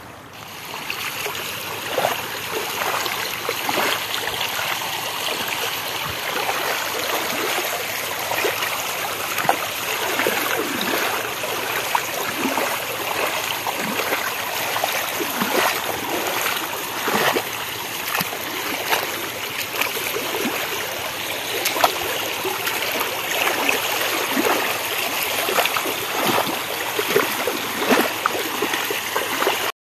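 Fast floodwater rushing across flooded paddy fields in a strong current. It makes a steady rush with many small splashes and gurgles.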